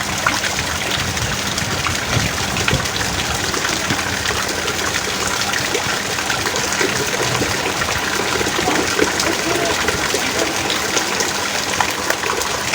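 Heavy rain pouring steadily: a dense, even hiss peppered with many individual drops splashing.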